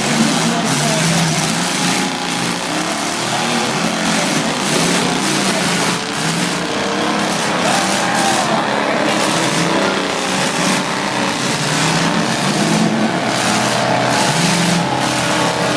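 Several demolition derby cars' engines running and revving at once, their pitch rising and falling without a break.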